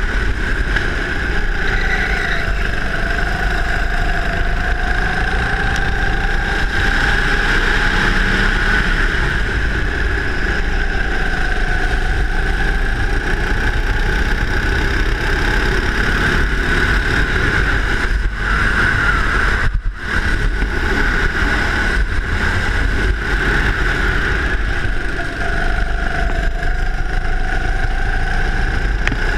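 Go-kart engine running at speed, heard from on board, its note wavering up and down as the kart goes through the corners. The sound dips for an instant about twenty seconds in.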